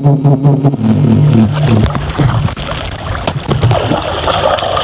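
A low, steady hum with a regular pulse stops about a second and a half in. After that comes the irregular sloshing and splashing of muddy ditch water as hands grope underwater for fish.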